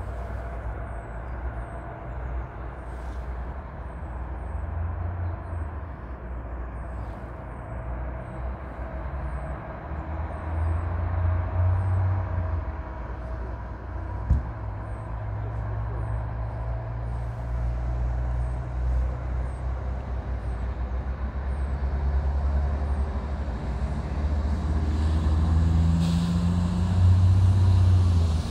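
Low engine rumble that swells in places and grows louder toward the end, its pitch shifting near the end.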